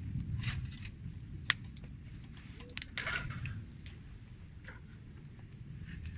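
Wood fire in a campfire stand crackling, with a few sharp pops, one about a second and a half in and a cluster about three seconds in, over a low steady rumble.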